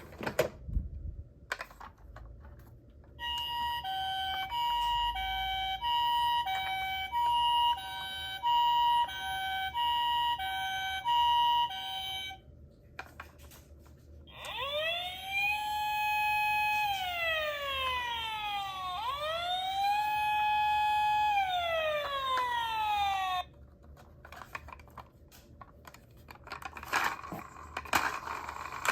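Toy emergency-vehicle minicars' electronic sirens. First comes a two-tone hi-lo ambulance-style siren alternating for about nine seconds. After a short pause, a wailing police-style siren rises, holds and falls twice. Small plastic clicks and handling rattles are heard at the start and near the end.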